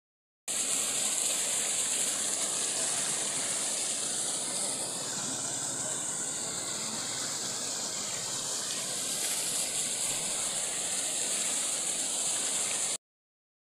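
Water pouring steadily from a row of pipes into concrete tanks, a continuous hissing rush that cuts in abruptly about half a second in and cuts off just before the end.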